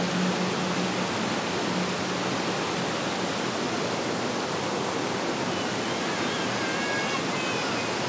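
Stream water rushing and babbling steadily over rocks. A few faint, short high-pitched notes come near the end.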